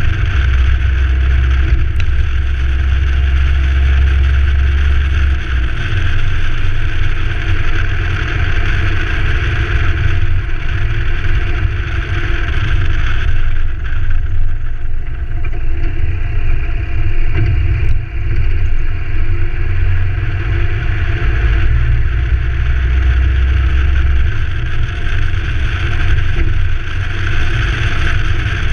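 Ford Ranger 4WD driving steadily along a dirt forest track: a constant low rumble of engine and tyres, with a couple of faint clicks about two seconds in and again past halfway.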